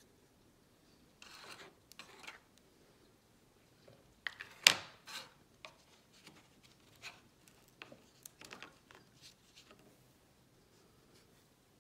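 Small camera lens filters being handled and lifted out of the foam slots of their metal storage tin: scattered rubbing and scraping with light clicks, the sharpest click about four and a half seconds in.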